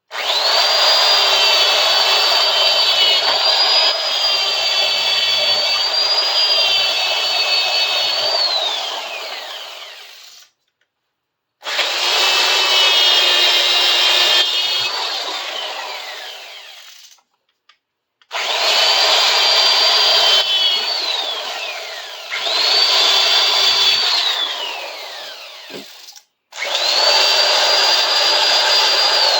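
Small high-speed electric power tool cleaning up the surface of a steel bar clamp: a high whine over a grinding rasp, run in about five bursts of several seconds. Its whine falls away each time the tool is let off.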